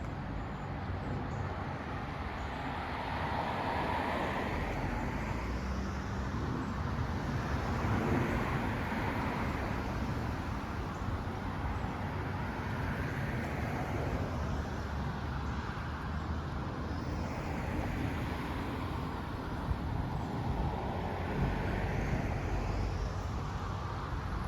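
Road traffic noise: a steady rumble with a wash of tyre noise that swells every few seconds as vehicles pass.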